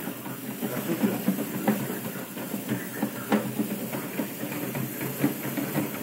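Manual push sweeper with wheel-driven spinning brushes, pushed across a hard floor: a steady low rumble from the brushes and wheels, with irregular clicks and ticks as it rolls.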